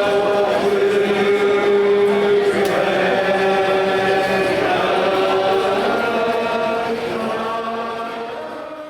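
Choir-like music of long held chords over a steady low drone, changing chord slowly a few times and fading out near the end.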